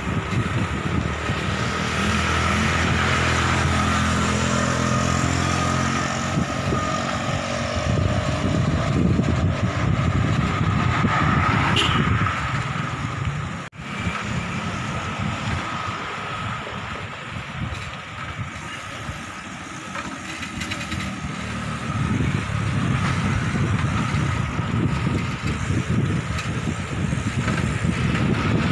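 Steady wind and road noise while cycling along an asphalt road, with a motor vehicle's engine heard in the first several seconds.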